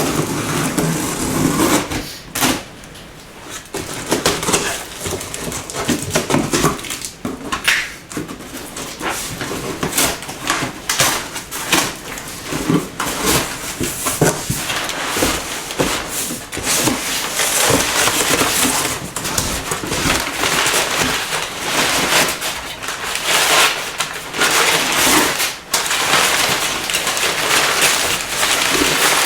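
A large cardboard parcel being unpacked: rustling, crinkling and tearing of cardboard and wrapping, with many short cracks and scrapes.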